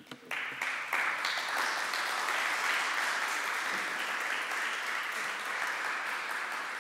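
Audience applauding: a few separate claps at first, swelling within about a second into steady applause that holds and eases slightly near the end.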